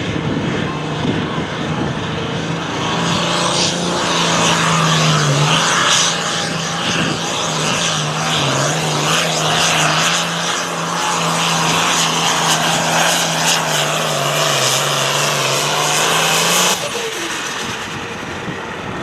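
Hot farm pulling tractor's diesel engine running at full throttle under load during a pull, a loud steady drone whose pitch wavers slightly, then dropping away abruptly near the end.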